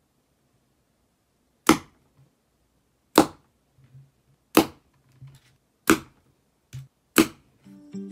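Matchstick arrows from a mini bow hitting a cardboard target: five sharp hits about one and a half seconds apart. Plucked-string music starts just before the end.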